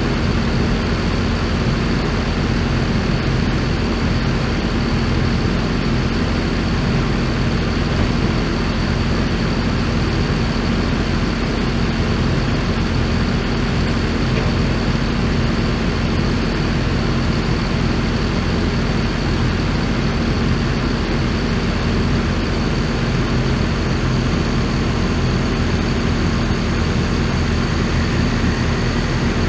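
A heavy vehicle engine idling steadily, a constant low hum with a thin high whine above it that does not change.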